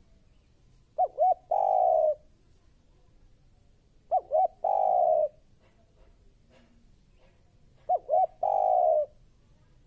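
Spotted dove cooing: three calls about three seconds apart, each two quick short notes followed by one long, drawn-out coo.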